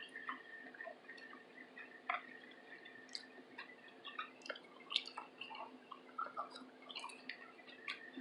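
Faint, wet mouth clicks and smacks of someone chewing food, scattered irregularly, over a faint steady hum.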